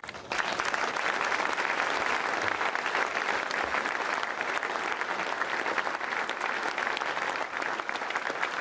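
Audience applauding, breaking out suddenly just after the start and going on steadily.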